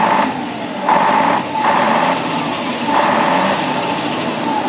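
Diesel engine of a 2000 Mack CH612 truck tractor running, swelling in loudness in several short surges about a second apart.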